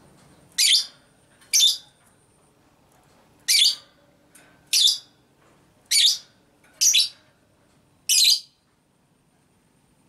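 Fischer's lovebird giving seven short, sharp, high-pitched shrieking calls, spaced unevenly about a second apart, the last one about eight seconds in.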